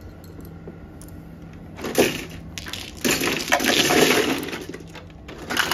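Mahjong tiles being swept across the felt and clattering down into an automatic mahjong table's center opening. A short clatter comes about two seconds in, then a long, dense clatter from about three seconds in.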